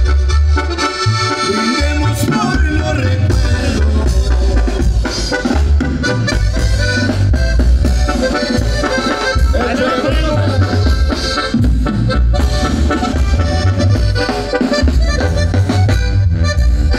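Live tamborazo band playing dance music: a heavy, steady tambora bass-drum beat under a sustained melody line.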